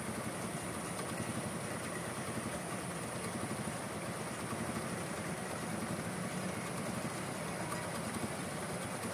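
Small engine running steadily, a low even drone with a thin, steady high whine above it.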